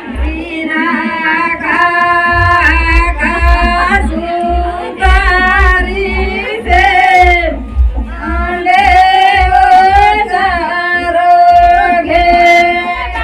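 A woman singing a folk melody into a microphone, amplified, in long held notes that step up and down in pitch, with a heavy low boom under her voice.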